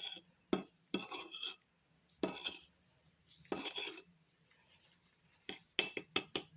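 A spoon scraping and clinking against a bowl while stirring a baking soda and lemon juice mixture, in several short separate strokes, with a quick run of clicks near the end.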